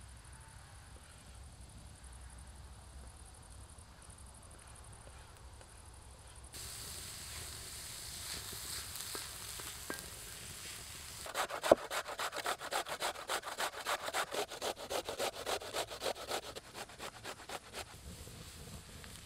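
Wooden spatula scraping back and forth across a steel disc pan, stirring frying onion and carrot. It comes as a run of quick, regular strokes that starts with one sharp knock about halfway through and stops near the end, after a quiet stretch.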